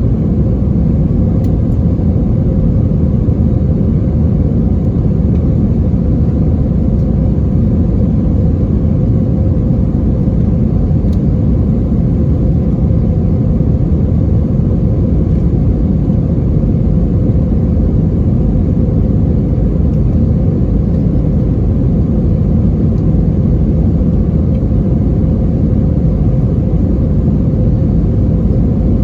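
Steady low rumble inside the cabin of an Airbus A320-232, from its IAE V2500 jet engines and the air rushing past, holding level with no change in pitch.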